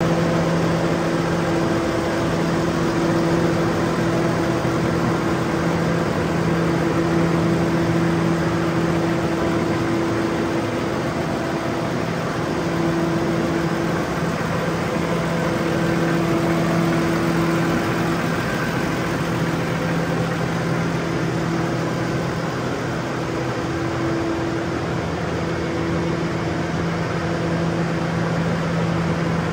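New Holland T7.270 tractor's six-cylinder diesel engine idling steadily: an even low hum whose tone swells and fades slightly every few seconds.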